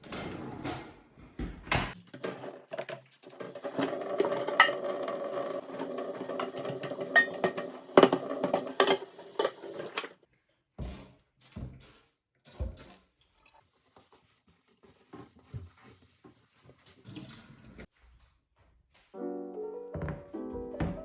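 Water running with dishes clinking against it for the first ten seconds or so, then a few scattered light knocks. Soft piano-like background music comes in near the end.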